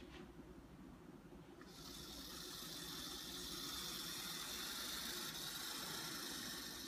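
Small electric motor of a Tyco model train locomotive running as it drives along the track, a high whirring hiss that starts about two seconds in and cuts off sharply near the end when the track power is switched off. A faint click comes right at the start.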